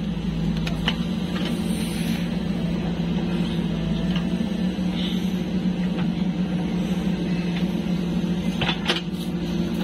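JCB 3DX backhoe loader's diesel engine running steadily under load while it digs and swings earth into a tractor trolley, with a few short knocks.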